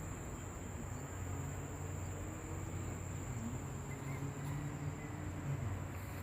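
Insects, crickets or cicadas, keeping up a steady high-pitched drone, over a low steady hum.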